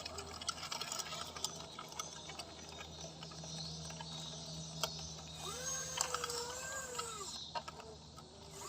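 Small electric drive of a handmade 1/14-scale RC bulldozer running with a steady hum, its tracks and blade giving off scattered clicks and ticks. About five and a half seconds in, a whining tone rises, holds for about a second and falls away.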